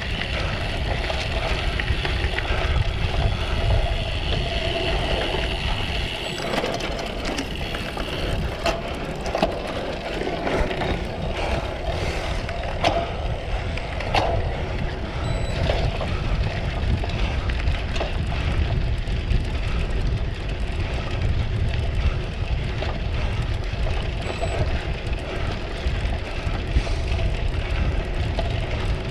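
Wind buffeting and the rattle of a cyclocross bike ridden hard over rough ground, with many scattered knocks and clicks from the bike.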